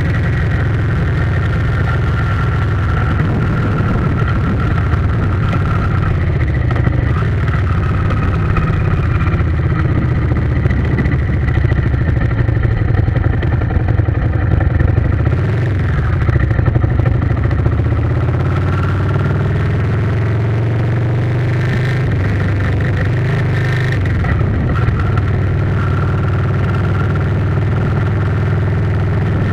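A vehicle engine running steadily for the whole stretch, with only small changes in pitch.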